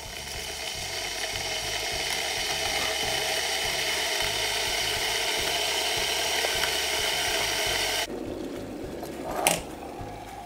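Stainless-steel electric kettle heating up toward the boil: a steady rushing hiss that grows over the first couple of seconds, then cuts off suddenly about eight seconds in as the kettle switches itself off. A short clatter follows about a second and a half later.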